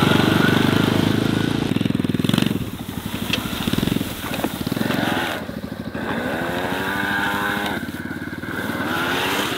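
Small vehicle motors running as a kids' dirt bike and a small Jeep-style off-road vehicle drive across a field. A loud low engine rattle fills the first couple of seconds, then drops away, and a whine rises and falls in pitch a few times.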